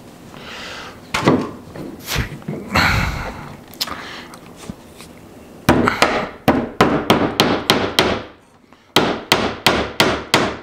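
A few knocks and handling sounds, then a claw hammer tapping a nail into the wooden planter box, fast and even at about four strikes a second, with a short break and the strikes starting again.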